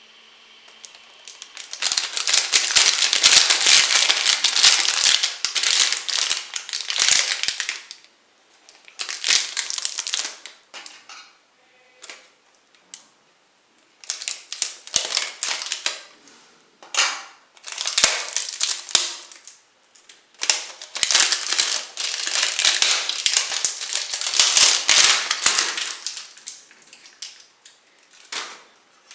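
Packaging being unwrapped and handled, crackling and crinkling in several bursts, two of them several seconds long.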